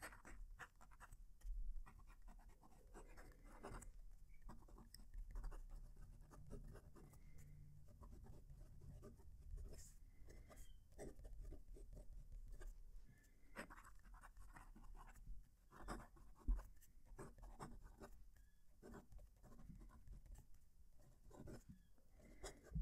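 Wing Sung 698 fountain pen with a gold fine nib writing on paper: a faint scratching of pen strokes with short pauses between them, neither quiet nor loud for a fountain pen, the nib giving some feedback on the paper.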